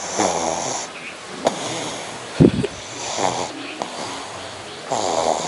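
Pug snoring while awake: three rough, noisy snoring breaths about two seconds apart. About two and a half seconds in there is a brief, louder low thump.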